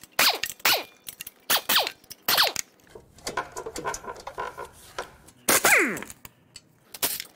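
Impact wrench fired in short bursts, each dying away in a falling whine as the motor spins down, backing out the clutch pressure plate bolts. Five quick bursts come in the first couple of seconds, then a stretch of light metallic ringing. A longer burst follows past the middle, and a last short one near the end.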